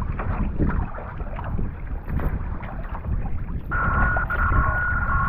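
Kayak paddle strokes splashing in the water, with wind buffeting the microphone. About two-thirds of the way in, a steady high tone with two pitches starts and holds.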